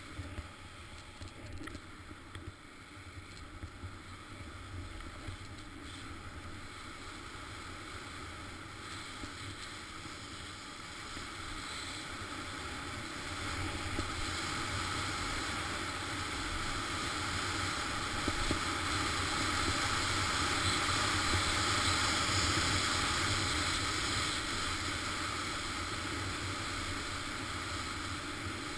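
Skis running over snow with wind rushing over a GoPro's microphone, a steady hiss with some scrapes and knocks in the first few seconds over tracked snow, growing louder from about halfway through and easing a little near the end.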